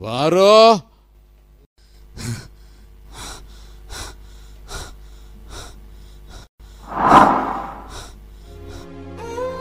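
A short vocal cry whose pitch rises and falls, then quick, evenly spaced gasping breaths a little over one a second, with one loud gasp about seven seconds in. Soft music with long held notes comes in near the end.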